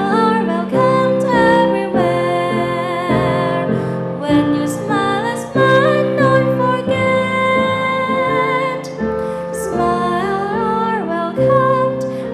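A teenage girl singing a song into a microphone over instrumental accompaniment, holding long notes with a wavering pitch.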